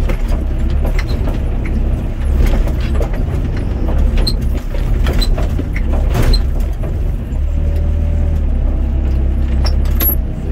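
Doosan DX55 mini excavator's diesel engine running under load, heard from inside the cab as the hydraulics work the boom and bucket, with the engine note shifting about seven seconds in. Scattered ticks of rain hit the cab glass throughout.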